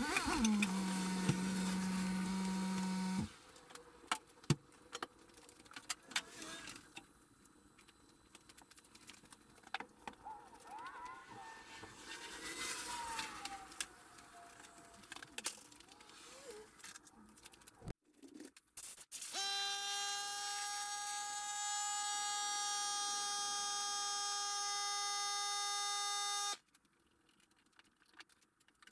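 A small motor hums steadily for about three seconds, then faint clicks and handling noises follow. About twenty seconds in, a steady high-pitched mechanical whine runs for about seven seconds and cuts off suddenly.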